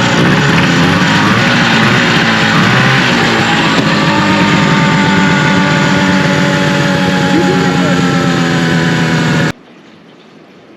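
1974 Arctic Cat Lynx snowmobile's fan-cooled 340 two-stroke engine running steadily after a long-dormant start. It cuts off suddenly near the end.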